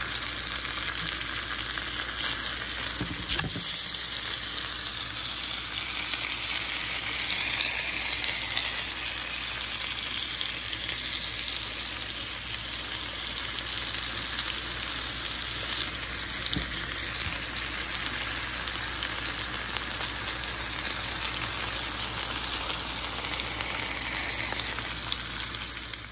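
Hot fat and juices sizzling steadily in a pan around browned chicken pieces.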